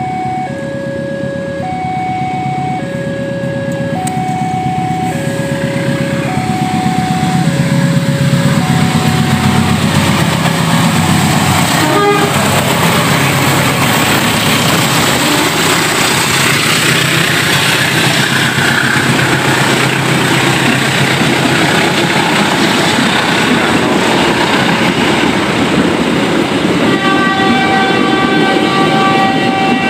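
A level crossing alarm sounds its alternating two-tone warning while a diesel locomotive approaches, its engine growing louder, then the train passes with a steady loud rumble of wheels and cars. Near the end the locomotive's horn sounds a long held blast.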